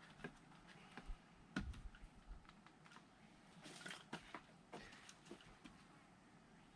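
Faint, scattered clicks and light wooden knocks, firewood being handled during firewood splitting, with no axe blow landing; a slightly heavier knock comes about a second and a half in.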